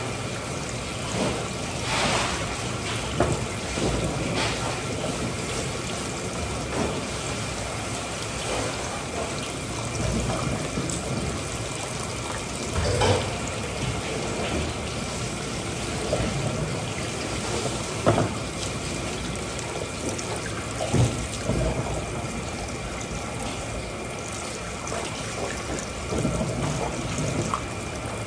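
Running water, steady throughout, with a few short knocks and clatters.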